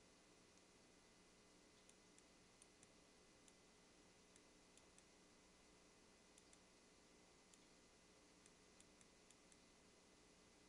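Near silence: faint steady hiss with scattered, irregular, very faint high-pitched ticks.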